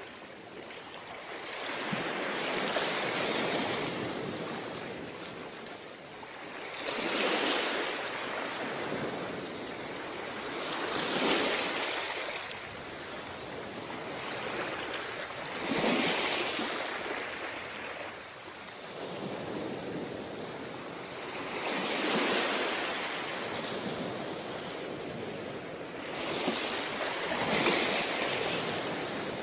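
Ocean surf breaking on a beach: about six waves, one every four to six seconds, each swelling into a loud rushing wash and then fading.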